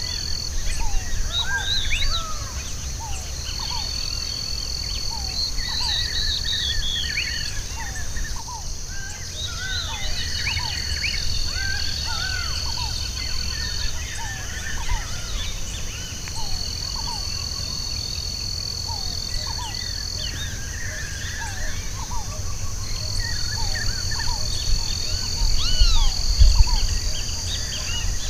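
Several wild birds calling and singing in short chirps and whistles over a steady high insect drone. A shrill insect trill sets in and stops every few seconds, and a low rumble runs underneath.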